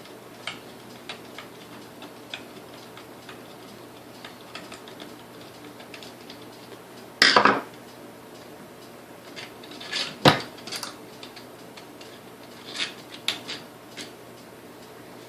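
Metal clicks and clinks of mixer parts and tools being handled during disassembly, with a few sharper knocks about seven and ten seconds in.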